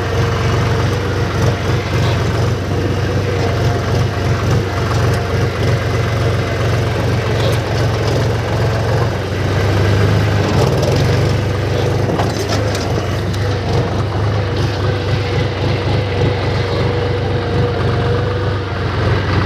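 HMT 5022 tractor's diesel engine running steadily while the tractor is driven, heard from the driver's seat.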